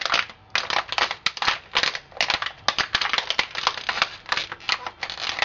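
Empty plastic bottle being squeezed flat by hand, its walls crackling and crinkling in a rapid run of irregular crackles as the air is pressed out.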